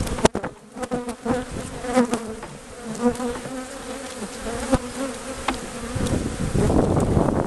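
Swarm of honeybees buzzing around an opened hive, the drone wavering in pitch, with a few sharp knocks as the hive's wooden frames and boxes are handled. Near the end, wind noise rushes over the microphone.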